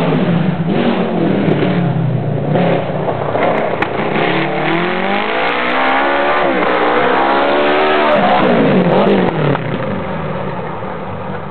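Yamaha 1100 engine of a homemade high-speed lawn tractor running hard on a fast run. The engine's pitch climbs to a peak about six seconds in, drops, rises again briefly around eight seconds, then the sound fades somewhat near the end.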